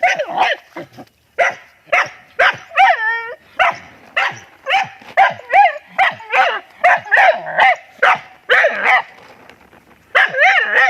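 A dog barking over and over in short, sharp barks, several a second, with a longer wavering cry about three seconds in and a brief lull near the end.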